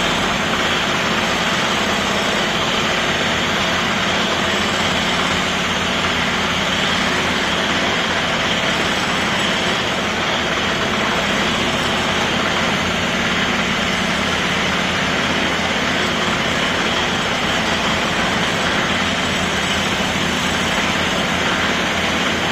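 Construction machinery running continuously: a steady, unbroken engine-like drone with a dense noisy hiss over it and no changes in level.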